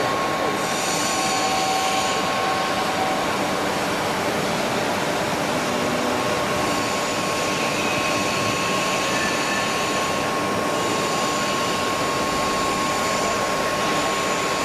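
Tandem press brake running: a steady mechanical noise with a constant whine.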